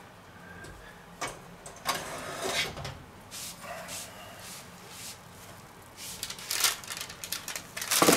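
Metal baking tray being taken out of a kitchen oven: scattered clicks and knocks of the oven door and the tray sliding off the rack, busier toward the end as the tray is set down on the countertop.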